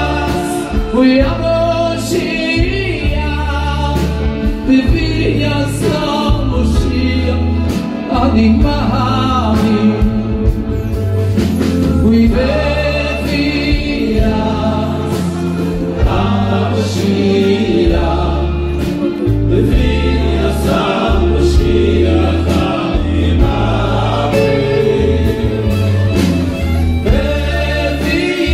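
Men singing a Jewish song together into microphones, with other voices joining in, over a live band with a steady bass line.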